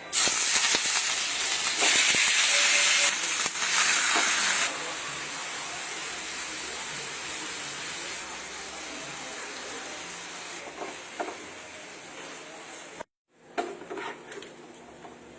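Food sizzling in hot oil in a pan. A loud sizzle starts abruptly, eases to a steady, lower sizzle after about five seconds, breaks off briefly near the end, then goes on more quietly.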